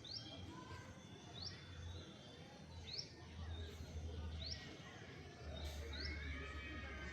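Birds singing: a short, sharply rising chirp repeated about every second and a half, with a run of warbling notes joining in near the end, over a steady low hum.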